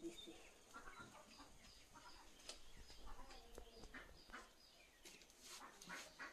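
Faint clucking of chickens and chirping of small birds, with a few light clicks scattered through.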